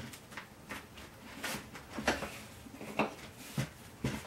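Handling noise from unboxing a foam RC model plane: a string of short, irregular knocks and taps as parts and packaging are picked up and set down.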